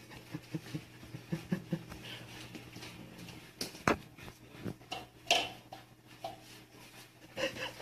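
Scattered light taps and knocks, with a sharp click about four seconds in and another knock a little over a second later, over a faint steady hum.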